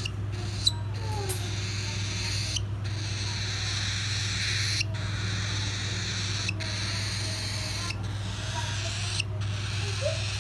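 Young cockatiel chicks giving a few faint, short squeaky calls, one rising near the end, over a steady low hum and hiss.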